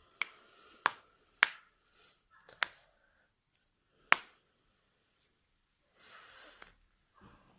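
Spinal joints cracking under a chiropractic adjustment: about five sharp pops over the first four seconds, the loudest about a second and a half in and again about four seconds in. A short soft hiss follows near the end.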